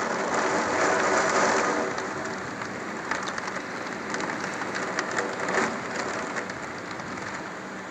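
Heavy rain falling steadily, with individual drops striking close by, easing slightly toward the end.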